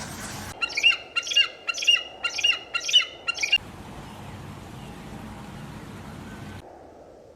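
A bird giving a series of about six loud calls, roughly two a second, followed by a steady hiss of background noise.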